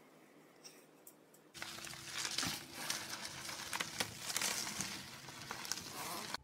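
Plastic bubble wrap crinkling and crackling with many sharp clicks as a chihuahua wriggles through a tube of it. It starts suddenly about a second and a half in.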